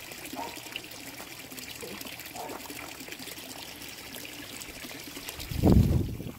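Pond water trickling steadily, with a few faint clicks of paver stones being set at the edge. About five and a half seconds in, a brief low thump-like rumble, the loudest sound.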